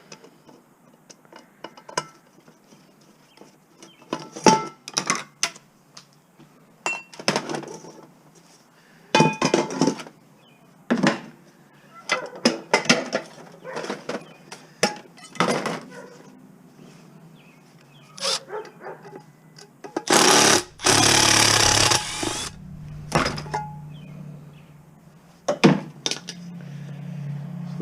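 Metal scrap parts being handled and broken down with tools: a string of irregular knocks and clanks, with a loud rattling burst of about two seconds roughly twenty seconds in.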